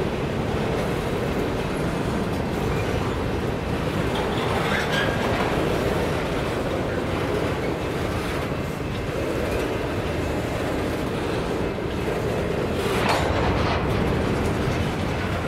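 Empty covered hopper cars of a freight train rolling past, a steady rumble and clatter of steel wheels on the rails, with a few sharper clanks, the loudest about thirteen seconds in.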